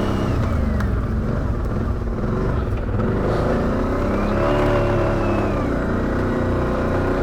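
ATV engine running at low trail speed. Its pitch rises and falls once as the throttle is worked, about three to six seconds in.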